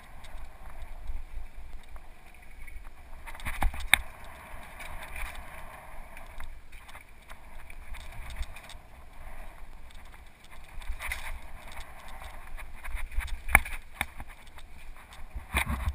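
Mountain bike ridden fast on a dirt singletrack, heard from a helmet-mounted camera: wind rushing over the microphone and tyres rolling on dirt, broken by several sharp knocks and rattles as the bike hits bumps. The loudest knocks come about four seconds in and near the end.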